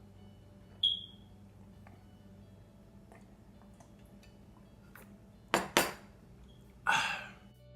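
A few hard household clinks and knocks over a low hum: a short ringing clink about a second in, two sharp knocks in quick succession past the halfway point, and a brief scraping clatter near the end.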